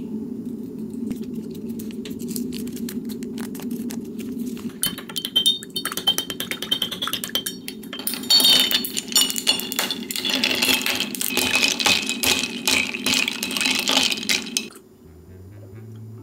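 A spoon clinking and ringing against a glass as a packet of green tea honey tea is stirred into water. The clinking comes thick and fast from about halfway through and stops a second or so before the end.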